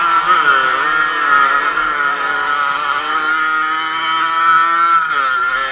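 Dirt bike engine running hard under the rider. Its revs dip and climb back shortly after the start and again near the end.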